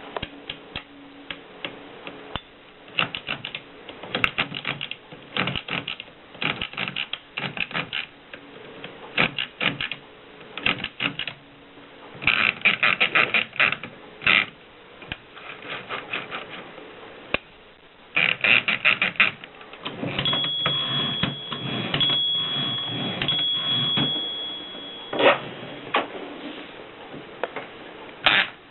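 Mercedes typewriter being typed on: bursts of rapid keystrokes separated by short pauses. In the second half there is a denser run of clacking with a thin steady high tone over it for a few seconds, then a single loud strike near the end.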